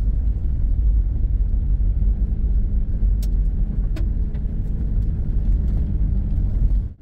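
Vehicle driving on a gravel road at around 30 mph, heard from inside the cab: a steady low rumble of tyre and road noise with engine hum, and a couple of light ticks about three and four seconds in. The sound drops out abruptly for a moment near the end.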